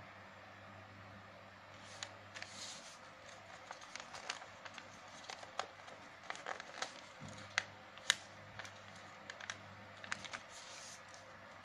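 A sheet of printed paper being creased and folded by hand into a paper airplane: irregular crinkles and crackles of the paper, the sharpest about eight seconds in.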